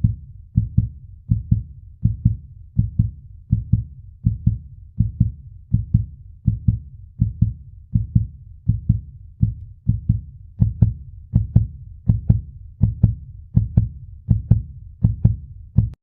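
A steady, regular low thumping, about three beats every two seconds, each beat a quick double thud; from about ten seconds in the beats turn sharper and brighter.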